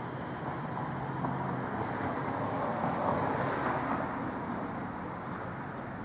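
Distant vehicle noise outdoors: a rushing sound that swells to a peak about three seconds in and fades again, over a steady low hum.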